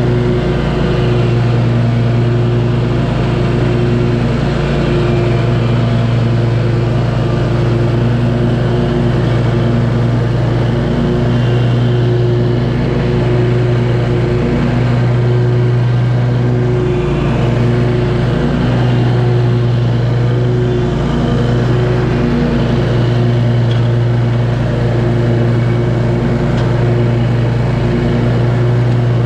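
Scag V-Ride II stand-on mower running steadily while cutting grass, its engine giving a strong low hum that dips briefly every few seconds.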